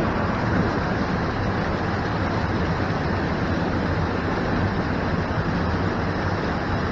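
Rushing creek water and waterfall: a steady, even noise without a break.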